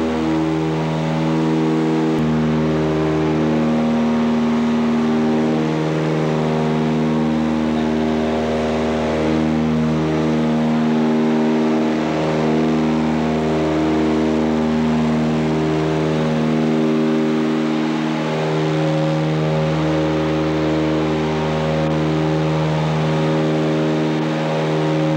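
Cabin noise of a Britten-Norman Islander in flight: its twin Lycoming IO-540 piston engines running steadily, the hum slowly waxing and waning every few seconds as the two engines drift in and out of step, over a hiss of airflow.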